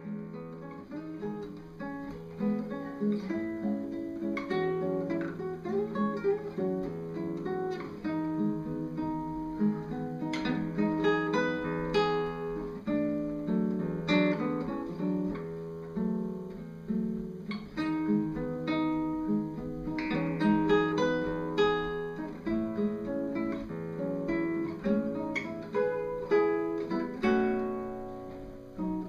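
Solo classical guitar playing a piece in separate plucked notes and chords.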